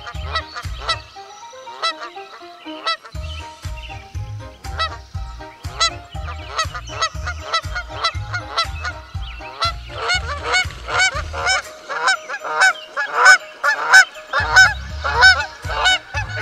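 Geese honking over and over, the honks coming thicker and louder in the second half, over a soft low rhythmic pulse.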